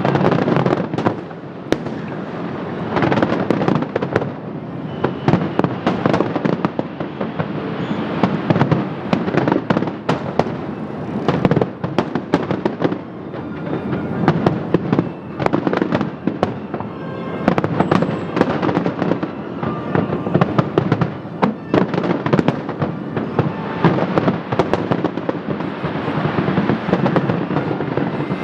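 Fireworks display in full flow: a rapid, continuous barrage of shell bursts and crackling reports, with no pause and the loudness surging up and down as volleys overlap.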